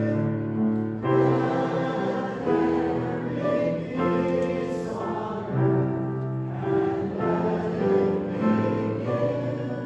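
Slow choral music: held chords that change about once a second.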